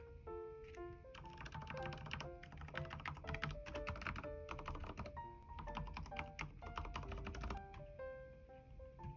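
Typing on a Keychron K10 mechanical keyboard with low-noise (silent) red switches: a run of quick key clicks over background music.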